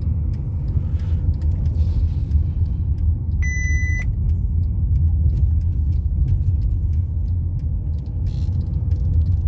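Cabin rumble of a Mercedes E350 CDI 4MATIC on the move, a steady low engine and road drone with scattered light clicks and rattles. A short electronic beep sounds once, about three and a half seconds in.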